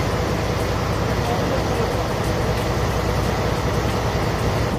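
A river boat's engine running steadily under a constant rush of water, heard from on board.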